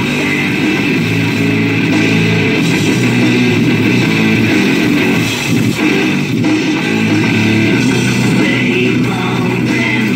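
Hard rock music with guitars, bass and drums, playing at a steady level on the truck's radio.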